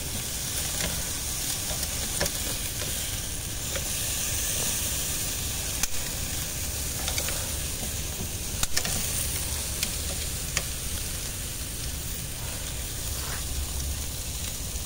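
Lamb chops sizzling steadily on the hot grate of a Weber kettle grill, with a few sharp clicks as the metal tongs touch the grate while the meat is turned.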